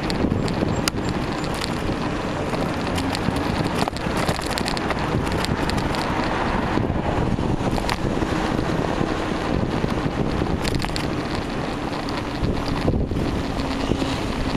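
Wind rushing over a bike camera's microphone while cycling, with car traffic running alongside. A few sharp clicks cut through the rush.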